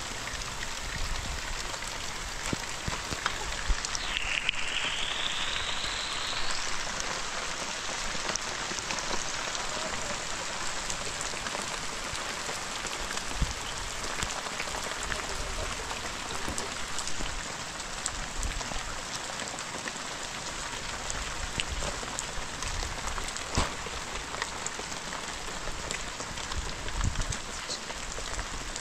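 Steady rain falling, with scattered drop ticks and small knocks. A faint high sound glides down and then up in pitch about four seconds in.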